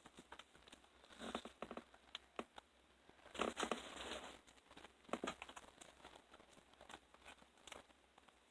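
Paper crinkling in a few short, faint bursts as a homemade paper squishy is handled, with scattered crackly clicks between them; the loudest burst comes a little over three seconds in.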